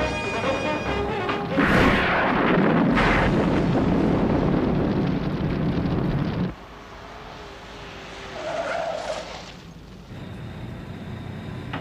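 Television sound effects of a heavy rescue vehicle grinding through rubble: a loud, rushing rumble with a sudden swell about two seconds in and another about three seconds in. It cuts off abruptly to a quieter rumble partway through. Orchestral music fades out at the very start.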